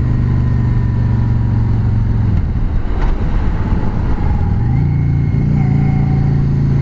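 Yamaha V Star 650's air-cooled V-twin engine running under way. About two and a half seconds in, its steady note drops away as the throttle eases off, then rises back about four and a half seconds in and holds steady again.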